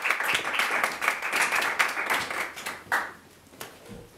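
A small audience applauding, a dense patter of clapping that thins out and dies away about three seconds in, with a last few claps after.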